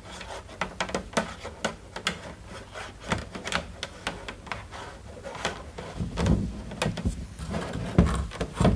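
Hands working on parts: irregular clicks, taps and rubbing, with a few heavier knocks in the last few seconds.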